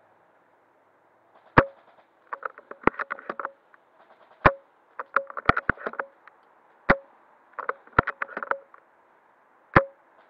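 Ares Striker spring bolt-action airsoft sniper rifle being fired and cycled over and over. Sharp shot cracks come every two to three seconds, and each is followed by a rattling cluster of bolt clicks.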